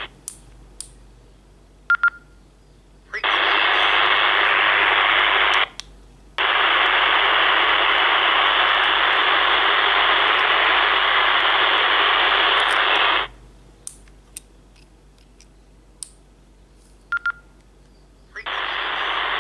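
Baofeng UV-82 handheld radio's speaker hissing with open-squelch static in long stretches: one of a couple of seconds, then one of about seven seconds, then again near the end. Between them come short keypad beeps and button clicks as its menu is worked.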